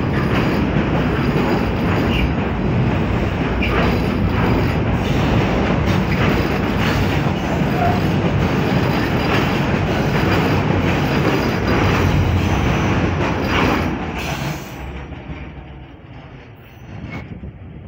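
Container freight train wagons rolling past close by, a steady heavy rumble with repeated clacks of wheels over rail joints. About fourteen seconds in the last wagon passes and the sound drops away and fades as the train moves off.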